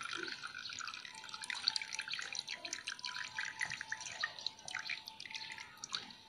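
Blended watermelon juice dripping and trickling through a metal mesh sieve into an aluminium pot, with many small ticks.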